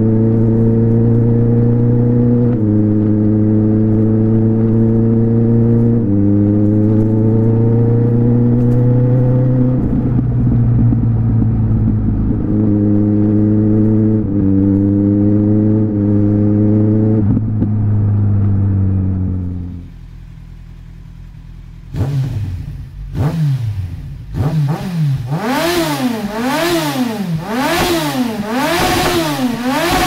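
Kawasaki Z1000's inline-four engine through a 4-into-1 Yoshimura carbon exhaust, running under way: a steady note that climbs slowly and steps down several times, then falls away and cuts out about two-thirds of the way through. After a short lull the engine is revved in quick repeated blips, each rising and falling.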